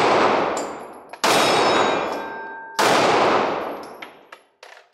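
Two shots from a Ruger LC9s 9mm compact pistol, about a second and a half apart, each ringing out in a long echo. The tail of a shot fired just before fades through the first second, and there are faint clicks between the shots.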